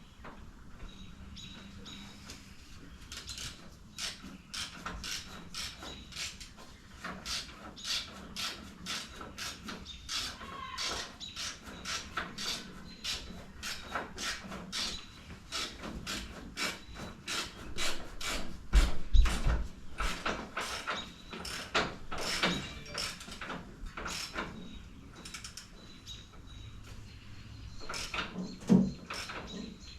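Hand tools working on a motorcycle: a long run of irregular sharp clicks and metallic knocks, with a heavier thump about two-thirds of the way through.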